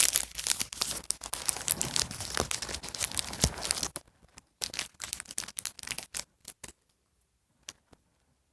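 A small plastic blind bag being torn open and crinkled, dense crackling for about four seconds. Then a few scattered rustles, and it falls quiet near the end.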